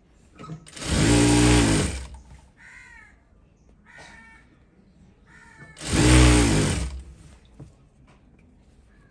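Sewing machine stitching a double-folded hem in two short runs of about a second each, about a second in and again near the middle. Each run speeds up and then slows as it stops.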